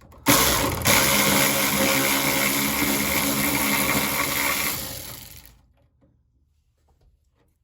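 Husky cordless ratchet motor running steadily on a door-hinge bolt. It starts suddenly, pauses briefly, then runs for about five seconds before winding down.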